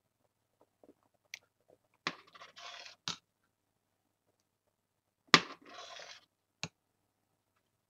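Metal spoon knocking against and scraping the inside of a stainless steel pot while stirring thick potato soup, in two short strokes about three seconds apart, each starting with a sharp knock, with a few light clicks between.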